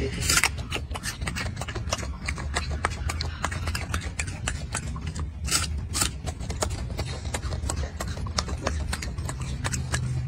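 Golden snub-nosed monkey chewing a crisp pear up close: a run of irregular, crunchy clicks several times a second over a low steady rumble.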